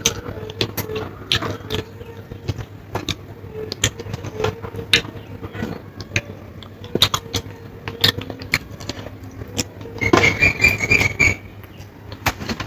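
Close-up eating sounds: chewing with wet mouth clicks and smacks, many short clicks close together. About ten seconds in, a high steady tone sounds for about a second and a half.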